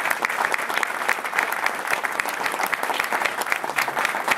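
Audience applauding, with dense steady clapping.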